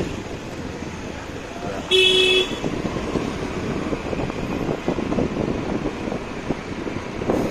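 A vehicle horn honks once, a short single-pitched blast about two seconds in, over steady roadside traffic noise and background voices.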